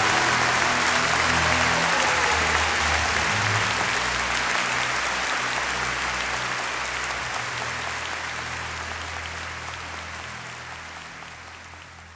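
Theatre audience applauding, gradually dying away.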